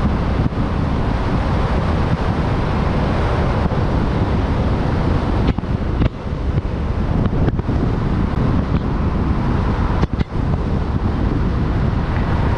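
Wind rushing over the microphone, with road and engine noise from a Jeep Rubicon driving. A steady, loud rush with a few brief dips in the middle.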